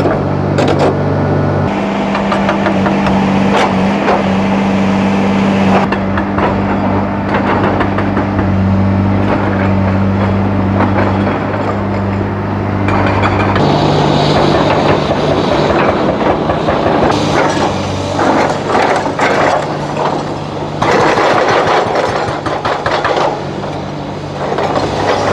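Hydraulic excavator's diesel engine running under load, with irregular clanking and scraping of metal and rock throughout. The engine note changes abruptly about two seconds in and again about halfway through.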